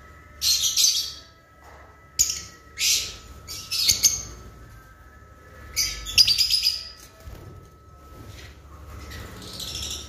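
Caged lovebirds chirping in short bursts of rapid, shrill chatter, about five loud bursts with pauses between them and a softer one near the end.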